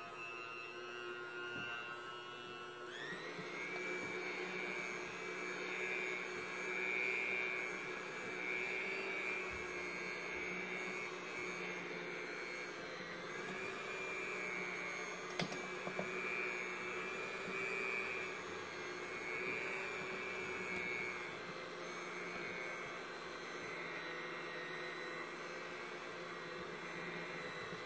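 Electric hand mixer running steadily with its wire beaters in a stainless steel bowl of stiff bread dough. The motor's whine steps up in pitch about three seconds in, and the beaters knock against the bowl once in the middle.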